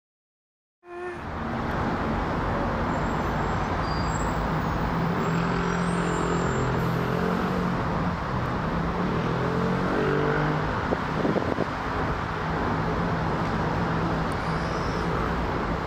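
Steady outdoor rumble of a Boeing 787-9 airliner passing high overhead on its descent, mixed with city road traffic noise; it cuts in abruptly about a second in.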